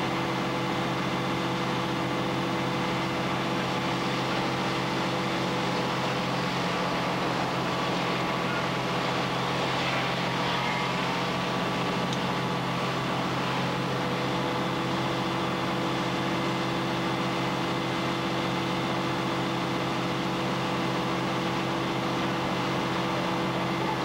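Fire engine's engine running steadily at the fire scene, a constant drone with a low hum.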